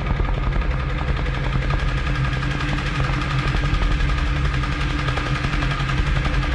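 Drums played with sticks in a fast, continuous stream of strokes, a dense rattling roll like rapid fire, with steady pitched tones held underneath.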